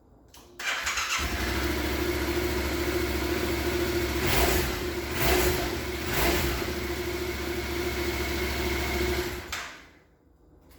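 Yamaha XSR700's 689 cc parallel-twin engine, on its stock exhaust, is cranked by the starter and catches about half a second later. It idles steadily, is revved in three quick blips near the middle, then is switched off and dies away.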